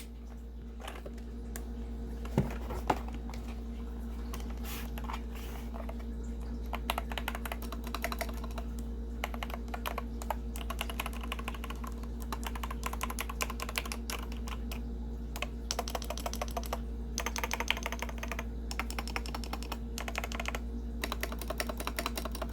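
Typing on a mechanical keyboard with yellow switches: scattered keystrokes at first, then fast, continuous key clicking from about six seconds in. Two sharper, louder knocks come near the start, over a steady low hum.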